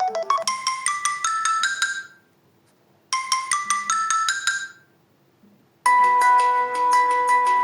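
Samsung Galaxy Feel built-in phone tone: a short melody of quick, bright pitched notes plays, stops, and plays again once after a second's pause. Near the end a different, louder tone with held notes begins.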